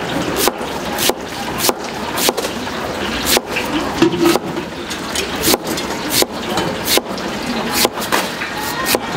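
A large kitchen knife slices a raw peeled sweet potato into thin rounds, each stroke knocking down onto the cutting board. The chops come steadily, about three every two seconds, over a steady background hiss.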